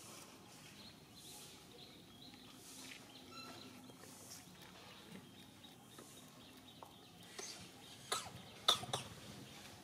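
Quiet outdoor ambience with a few short, sharp animal calls bunched together about eight to nine seconds in.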